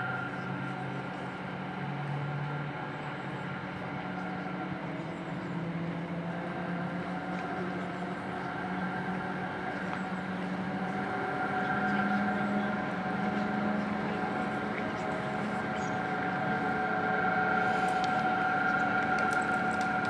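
Kasprowy Wierch aerial cable car running: a steady mechanical hum with a held whine over it, growing a little louder in the second half.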